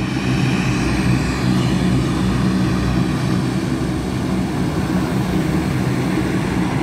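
C-130 Hercules' four turboprop engines running on the ground ahead of take-off, making a steady, loud, deep propeller drone.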